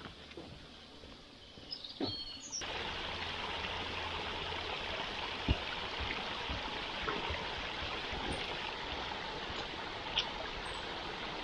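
Small woodland stream running, a steady noise that comes in abruptly about two and a half seconds in. Before that, and scattered throughout, footsteps and light knocks, at first on a metal grating footbridge.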